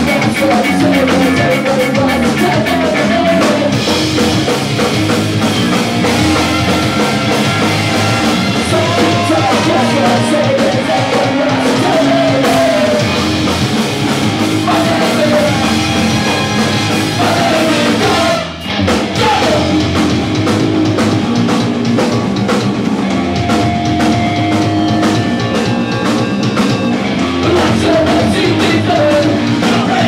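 Ska-punk band playing live: saxophone, trumpet and trombones over electric guitar, bass and drum kit, with a lead vocal. The band cuts out for an instant a little past halfway and comes straight back in.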